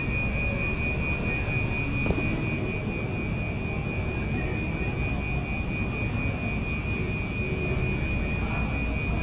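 Gentex Commander fire alarm horn sounding on continuous, an unbroken ear-piercing high tone, over a steady low rumble.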